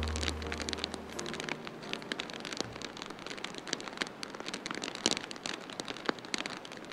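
Steady heavy rain with many scattered sharp ticks and pops, a few of them louder. The low held notes of soft background music die away about a second and a half in.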